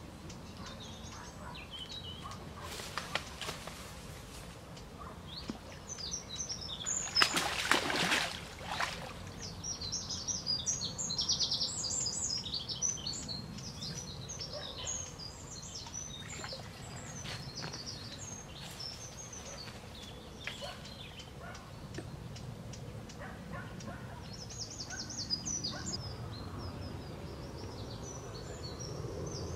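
Birds singing and chirping, with one louder rushing noise lasting about two seconds roughly a quarter of the way in.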